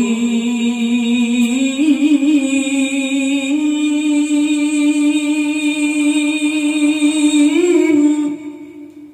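A man reciting the Qur'an in a melodious chanted style into a microphone, holding one long ornamented note. The pitch steps up about two seconds in, and the note fades out with a short echo near the end.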